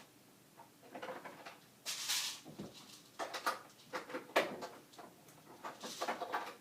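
Handling noises: irregular knocks, clicks and rustling as ammo is picked up and set down, with two louder rustles about two seconds in and near the end.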